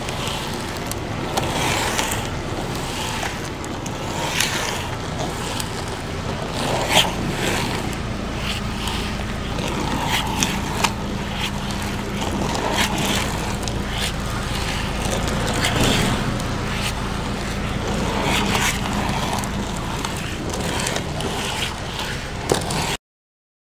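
Freeline skate wheels rolling over asphalt, a steady rumble with occasional sharp clicks and scrapes as the skates are turned through frontside 180s. It cuts off suddenly near the end.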